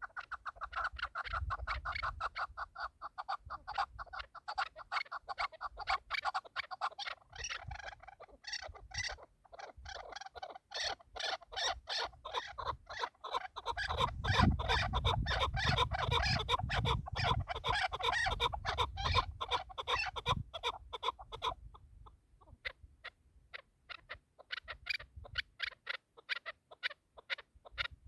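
Chukar partridges calling: long runs of rapid, clucking chuck notes, thinning to sparser notes near the end. A low rumble runs under the calls through the middle.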